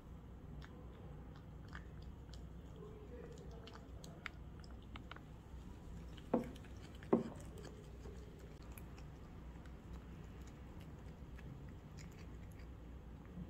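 Cat chewing soaked dried pollock pieces from a ceramic bowl, with many faint wet clicks. Two louder knocks come about six and seven seconds in.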